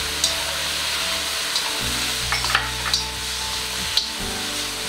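Jerusalem artichoke and pork strips sizzling in a hot wok as they are stir-fried with chopsticks: a steady frying hiss with a few sharp clicks of the chopsticks against the pan.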